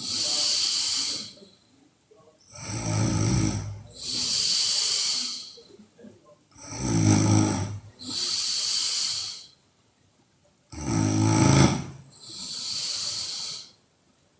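A woman snoring in deep sleep. Each breath is a loud, low buzzing snore on the in-breath, followed straight away by a hissing out-breath; the cycle repeats steadily about every four seconds.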